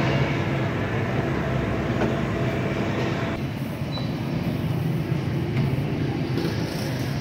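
Steady low mechanical rumble with a hum under it. About three and a half seconds in the sound shifts and the higher hiss drops away.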